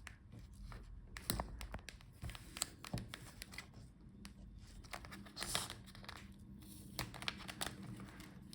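Hands removing the speakers from inside an open Dell XPS 13 7390 laptop: scattered small clicks and taps with crinkling, and a longer rustle about five and a half seconds in.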